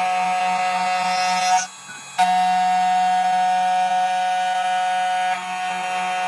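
Spindle motor of a 2M2TANK 2 Pro CNC key cutting machine running with a steady, even whine. It stops for about half a second a little under two seconds in, then spins up again, and it drops slightly in level and tone a little after five seconds.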